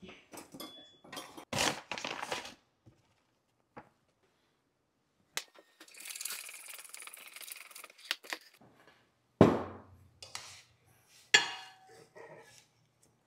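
Kitchen handling sounds: a pouch of cacao powder crinkling as it is poured, a spoon stirring and scraping in a bowl of oats, then two sharp clinks of utensils against dishes near the end.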